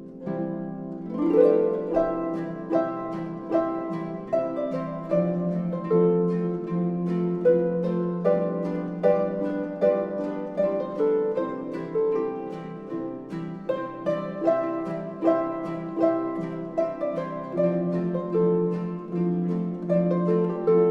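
Harp music: a melody of plucked strings over ringing low bass notes, played at an even, unhurried pace.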